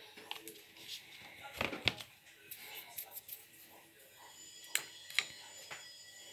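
Sharp light clicks and knocks of painting tools being handled on the table: a few close together about two seconds in, then two about half a second apart near the end.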